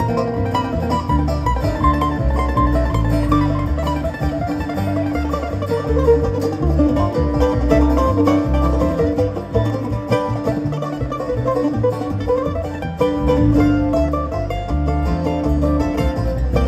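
Live bluegrass band playing an instrumental passage: banjo and mandolin picking over an electric bass.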